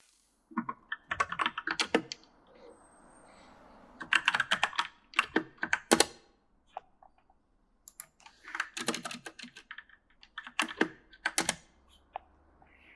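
Typing on an E-Element mechanical gaming keyboard: three runs of quick, uneven keystrokes separated by short pauses, with a few single key presses in between.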